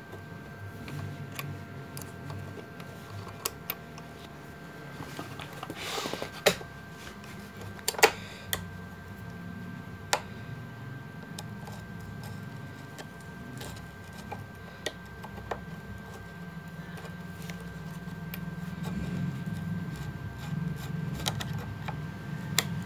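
Scattered small metal clicks and taps from a screwdriver and fingers working the screws of a hand-crank sewing machine's rotary hook (shuttle) as it is fitted and tightened, the sharpest about six and eight seconds in. A faint steady hum runs underneath.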